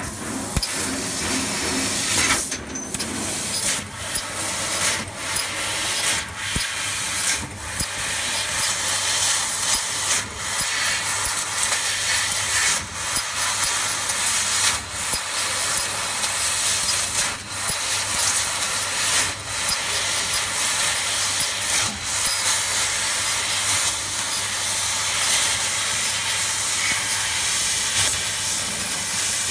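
CNC laser cutting machine cutting brass sheet: a steady hiss of the gas jet at the cutting nozzle, broken every second or two by brief dips as the head stops and moves between cuts. A low steady hum runs underneath.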